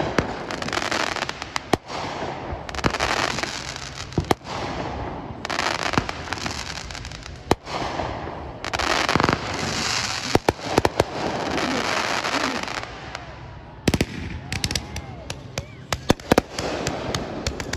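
Fireworks going off: sharp bangs of bursting shells with long stretches of crackling between them, then, from about three-quarters of the way in, a quick string of pops as several shots fire in rapid succession.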